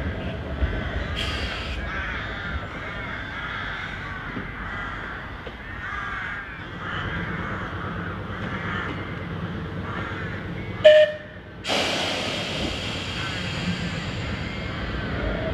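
Crows cawing over and over in the trees, over the low rumble of a heritage electric tram standing at the station. About eleven seconds in comes a short, loud pitched tone, then a hiss that fades away.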